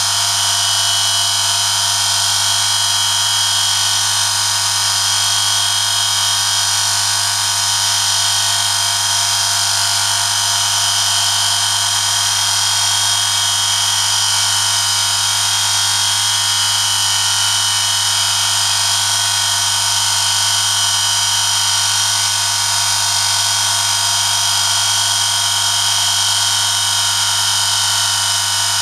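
Electric motor of a homemade oil friction-test rig running steadily, its spinning shaft rubbing metal on metal against a test sample lubricated with 5W-30 engine oil under a 1 kg load. A constant low hum with a loud, high, steady metallic whine.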